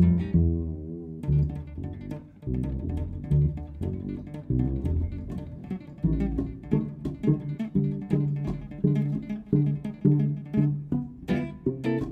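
Double bass and archtop electric guitar playing jazz together as a duo, a stream of plucked notes from both. About a second in, a held note wavers in pitch before the plucked lines resume.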